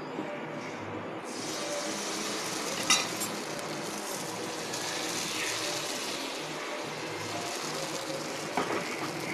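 Appam batter sizzling in a hot, oiled cast-iron appam pan, the hiss swelling about a second in as the batter goes in. There is a sharp knock about three seconds in and a lighter one near the end as the pan is handled and swirled.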